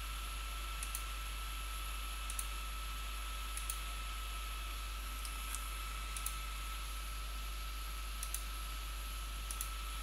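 Computer mouse clicks, single and in quick pairs, about one every second or two, over a steady hiss with a faint high steady tone.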